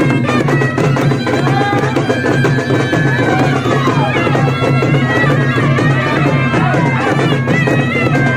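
Traditional festival music: a reedy wind instrument plays a wavering, ornamented melody over a steady drum beat.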